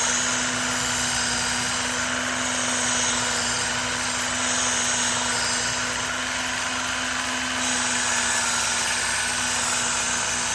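Work Sharp belt knife sharpener with the Ken Onion blade grinding attachment, its motor running with a steady hum. A knife blade is drawn across the moving abrasive belt, adding a grinding hiss that swells and fades with each pass.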